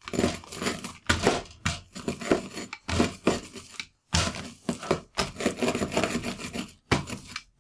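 Rolling pin rolled back and forth over Oreo cookies sealed in a plastic gallon bag, crushing them into crumbs: gritty crunching and rubbing with the bag crinkling, in repeated strokes with brief pauses between them.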